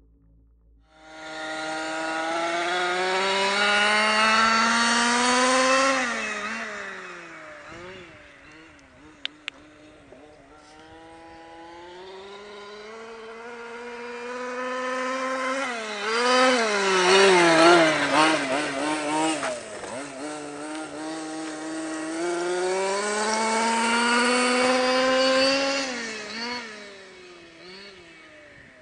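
Two-stroke petrol engine of a Losi 5ive-T 1/5-scale RC truck at high throttle, its buzzing note rising in pitch as it speeds away on long runs, dropping as it slows, with a burst of quick throttle blips in the middle and fading near the end. Two short sharp clicks about nine seconds in.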